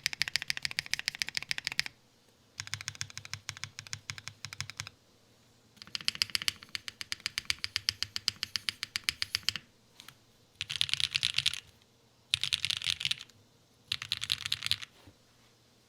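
Typing on a custom 60% mechanical keyboard with lubed and filmed KTT Rose linear switches, GMK keycaps and a carbon fibre plate. The keystrokes come in runs of a few seconds with short pauses between them, and near the end there are three short, very rapid flurries of keypresses.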